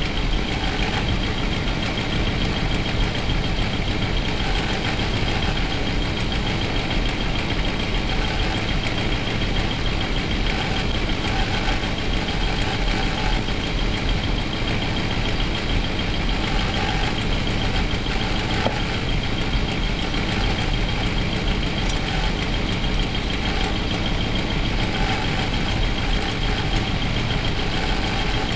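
Motorhome's gasoline V8 engine idling steadily, heard with the engine cover off inside the cabin. It is run warm so the newly rebuilt transmission's fluid level can be read and topped up.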